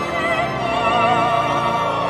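Operatic classical background music: high sustained notes wavering in heavy vibrato over lower held tones.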